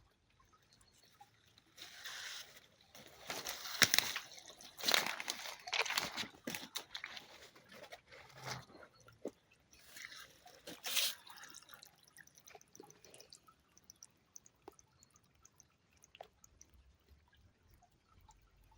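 River water sloshing and splashing in irregular bursts, most of it in the first third, with another short splash about halfway through. After that come only scattered small drips and ticks.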